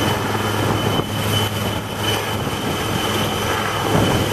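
Helicopter's turbine engine and rotor running steadily, a high whine over the rotor noise.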